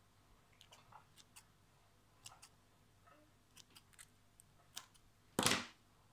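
Small scissors trimming a cotton wick: a string of light, irregular clicks and snips, then one louder short rush of noise about five and a half seconds in.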